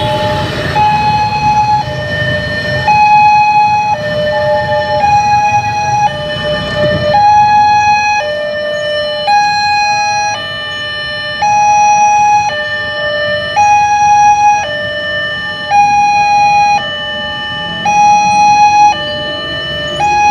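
Railway level-crossing electronic warning siren sounding, stepping back and forth between a higher and a lower note in uneven steps of about half a second to a second. A low rumble runs under it for roughly the first seven seconds.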